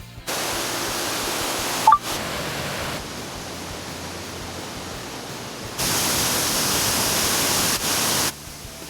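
Rushing water of a mountain stream or waterfall, a steady roar that jumps louder or softer a few times as the shots change. A short high two-note beep near 2 seconds in.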